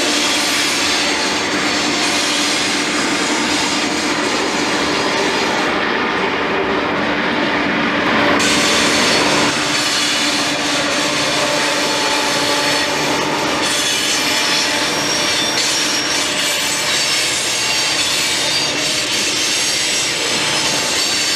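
Loaded freight cars rolling past on the grade, with steel wheels squealing against the rail and a steady clatter over the track.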